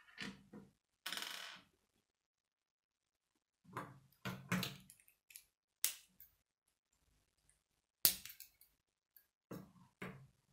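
K'nex plastic parts being handled and snapped together: scattered clicks, rattles and knocks of plastic against plastic and the wooden table, with a brief rattle about a second in and the sharpest snap about eight seconds in.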